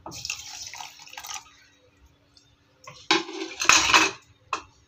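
Water poured from a plastic jug into a steel mixer-grinder jar for about a second and a half, followed about three seconds in by a loud, brief burst of handling noise.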